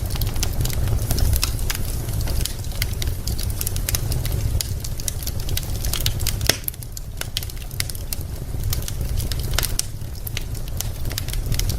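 Wood fire in a fireplace crackling, with many irregular sharp pops over a steady low rumble.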